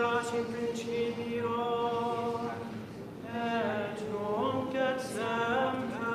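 Unaccompanied plainchant: voices sing long held notes with slow glides between pitches, pausing briefly about three seconds in.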